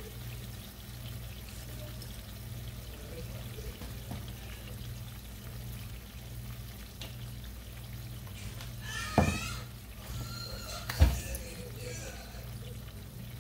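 Ackee and saltfish simmering in a frying pan: a quiet, steady bubbling over a low, evenly pulsing hum. Two short, loud knocks come about nine and eleven seconds in.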